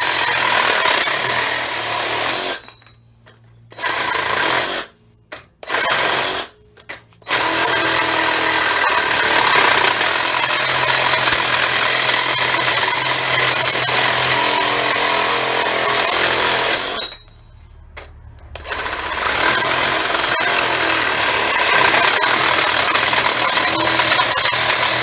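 Black+Decker BDCR18N 18 V cordless reciprocating saw cutting through a steel pipe. It stops for about a second roughly three seconds in, twice more briefly before about seven seconds, and for over a second around seventeen seconds, starting up again each time.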